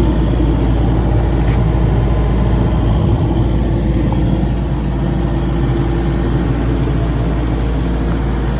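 Hitachi ZX135 crawler excavator's diesel engine idling steadily.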